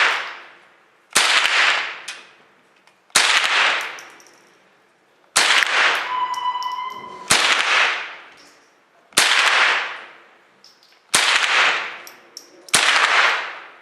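Seven .22 LR rifle shots, one about every two seconds, each followed by a long echoing tail in an indoor shooting range. A short steady beep sounds about six seconds in.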